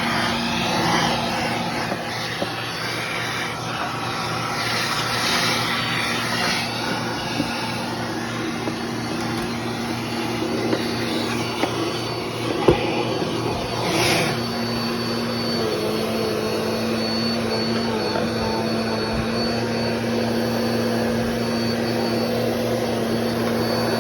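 Bissell PowerForce Compact Turbo upright vacuum running steadily with its hose in use: an even motor hum over rushing air. A sharp knock comes about halfway through, and a short rush of air follows about a second later.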